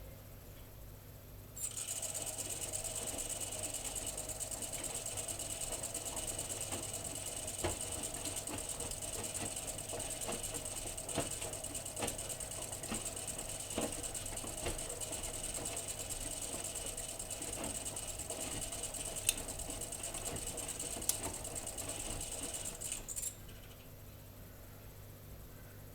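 AEG Öko-Lavamat washing machine running for about twenty seconds, a steady motor whine with a few scattered clicks, then it cuts off suddenly.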